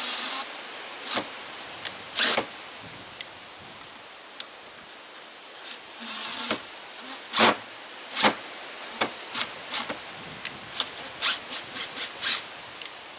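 Hand work with screws and tools: irregular sharp clicks, knocks and short scrapes, coming faster in the second half. It sounds like screws that will not go in cleanly being fiddled with.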